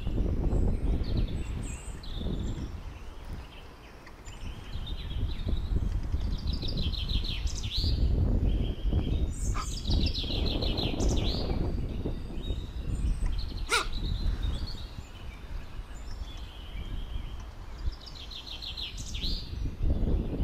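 Songbirds singing, repeating short rapid trilled phrases several times, over a low rumble. A single sharp click about fourteen seconds in.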